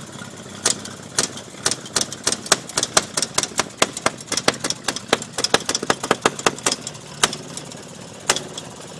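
Antique Maytag two-stroke washing-machine engine firing in sharp separate pops through the pedal tractor's exhaust stack. It fires a couple of times a second at first, quickens to about five or six pops a second in the middle as it is speeded up, then slows again near the end.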